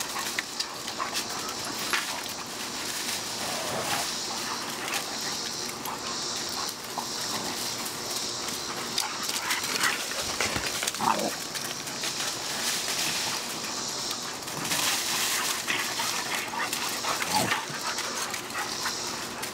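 Puppies play-fighting, with a few short vocal cries about four, eleven and seventeen seconds in, and paws scuffling and rustling in dry leaves and dirt.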